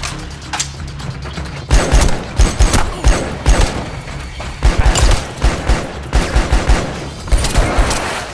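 Film gunfire from rifles in a shootout: after a quieter opening with a low music drone and a few clicks, a dense exchange of shots starts about a second and a half in and goes on in rapid strings, with a low music score underneath.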